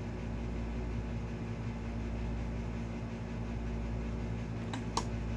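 Steady low hum with a hiss over it, from some running machine or electrical equipment, with two short clicks close together near the end.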